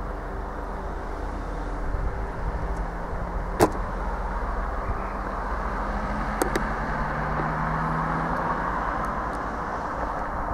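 First TransPennine Express Class 185 diesel multiple unit approaching along the platform, its diesel engine and running gear giving a steady rumble with an engine tone that rises slightly. Two sharp clicks sound about three seconds apart.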